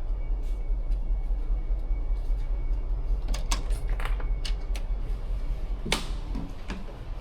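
Steady low rumble of ambient noise aboard a cruise ship, with a quick run of sharp clicks a few seconds in and one louder click near the end.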